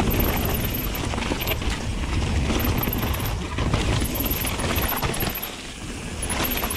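Mountain bike riding fast down a dirt singletrack: tyres rolling and crunching over the dirt with a steady low rumble, and the bike clicking and rattling over bumps. It eases a little about five and a half seconds in.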